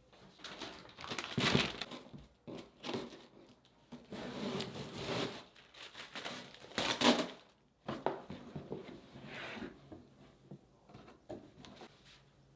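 Packaging being handled during an unboxing: crinkling and rustling in irregular bursts, loudest about a second and a half in and again around seven seconds, dying down near the end.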